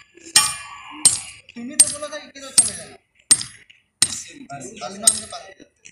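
A hammer striking a steel drive pin in compacted gravel, about seven ringing metal blows at roughly one every three-quarters of a second. This is the drive pin used to make or loosen the probe hole for a nuclear density gauge test.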